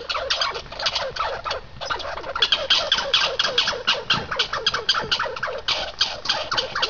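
Red squirrel chattering: a rapid, uneven string of short sharp calls, about six a second, with a brief lull about a second and a half in.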